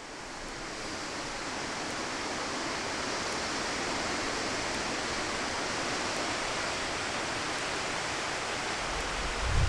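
Steady outdoor rushing noise that fades in over the first second and then holds level. Near the end, low buffets of wind hit the microphone.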